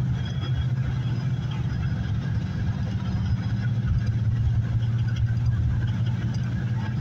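Engine and road noise of a moving vehicle heard from inside its cabin: a steady low drone that does not rise or fall.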